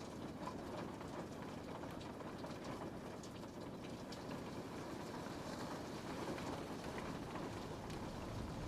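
Steady rain falling on a window: a constant soft hiss with many small drop ticks scattered through it.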